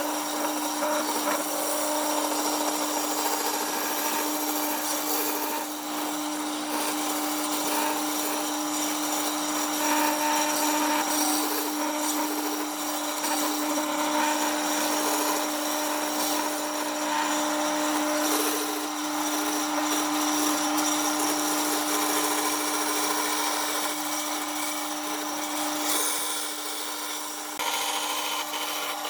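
Electric power tool running steadily with its motor humming at one pitch while it grinds or sands against wood. Near the end it briefly eases off, then carries on.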